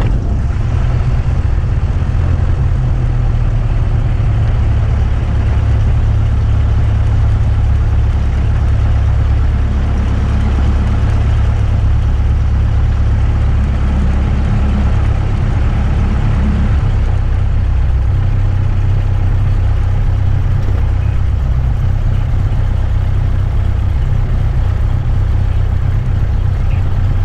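Cessna 172SP's four-cylinder fuel-injected Lycoming IO-360 engine just started, running steadily at idle, heard from inside the cockpit.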